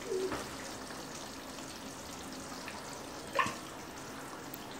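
Chicken curry simmering in a wok with a steady, watery bubbling while coconut cream is scooped from a can into it. A single metal clink about three and a half seconds in.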